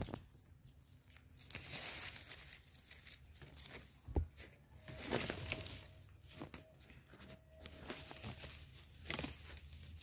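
Leaves and twigs rustling and crackling in irregular bursts as an Indian ringneck parrot clambers through a leafy tree, with scattered small clicks.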